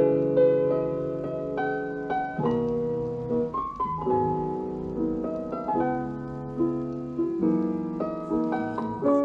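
Solo piano music playing back from a vinyl record on a Pioneer PL-X55Z turntable, heard through a small portable speaker. Notes and chords are struck one after another, each ringing and fading.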